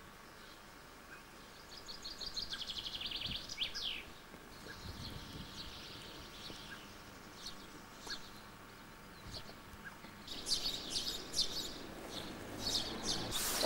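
Small songbirds singing: a fast trill of high notes about two seconds in, ending in a quick downward sweep, then scattered short chirps. Near the end, a louder run of crackling clicks.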